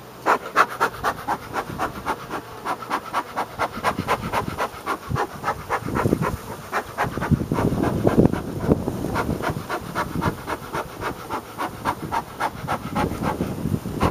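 Bee smoker's bellows pumped in a fast, even run of puffs, about three a second.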